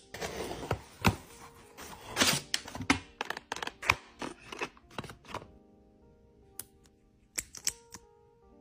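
A cardboard shipping box and its paper and card contents being opened and handled: dense rustling and crinkling with many quick clicks and taps for the first five seconds or so, then a few isolated clicks. Soft background music with held tones plays underneath, plainest once the handling quiets down.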